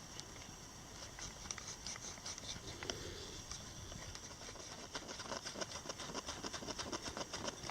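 A cotton swab with T-cut polish rubbing a starter-motor carbon brush: a faint run of quick scratchy strokes that gets busier after about five seconds, as the glazing is cleaned off the brush.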